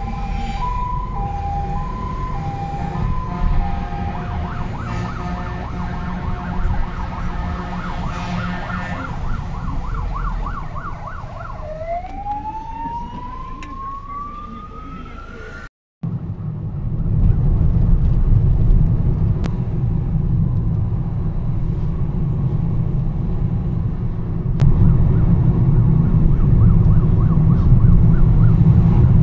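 Fire engine's two-tone horns sounding, a high and a low note alternating, followed by a warbling siren and a long rising wail. After a cut, the low engine and road noise of the following car takes over.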